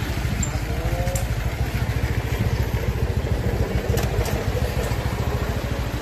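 Street traffic: a steady, fluttering low engine rumble from a vehicle running close by, with a few faint clicks.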